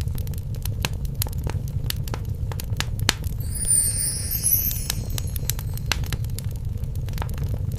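Fireplace fire crackling: frequent sharp pops and snaps over a low steady rumble of flames. About three seconds in, a high shimmering sound rises over it for a little over a second.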